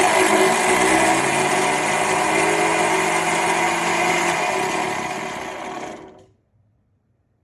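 High-speed countertop blender motor running loudly and steadily with a high whine, then fading and stopping about six seconds in.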